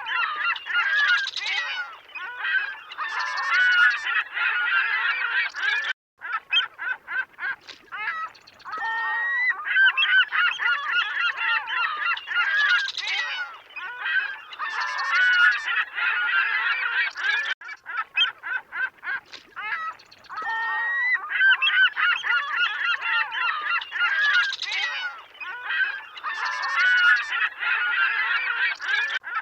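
A flock of waterfowl calling at a lake, many overlapping honking calls at once, with a brief gap of silence about six seconds in.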